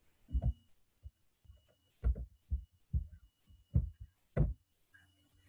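About ten soft, low thumps at irregular intervals, heard close to the computer's microphone: knocks and handling on the desk or laptop.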